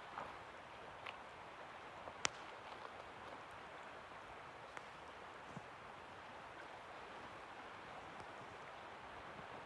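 Coeur d'Alene River flowing: a faint, steady rush of moving water. A single sharp click comes a couple of seconds in, with a few fainter ticks scattered through.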